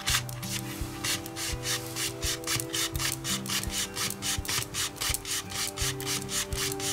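Background music: held low notes changing pitch every second or so over a quick, even, scratchy beat of about five strokes a second.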